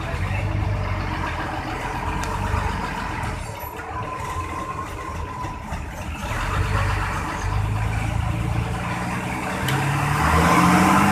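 Intercity bus diesel engine running with a low, snoring exhaust note, the revs climbing near the end as it accelerates.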